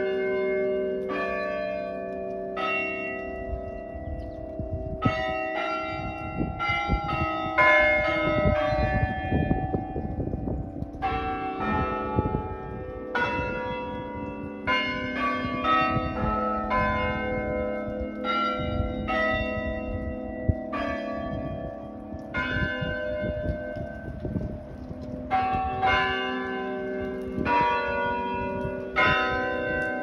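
Chime of tower bells in the belfry, played one bell at a time from the playing platform, ringing out a tune. The strikes come about one or two a second, each note ringing on under the next, in phrases broken by short pauses.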